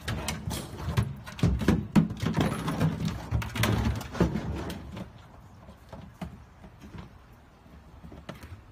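A red plastic bucket being knocked, bitten and pushed around a pickup truck's bed by a Rottweiler: a run of hollow knocks, thumps and scrapes in the first few seconds, then only a few lighter clicks and shuffles.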